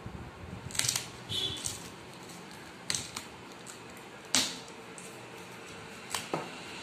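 Stainless steel coconut opener blade cutting and prying into the top of a green tender coconut: a series of sharp clicks and short scraping cuts at uneven intervals, the loudest about four and a half seconds in.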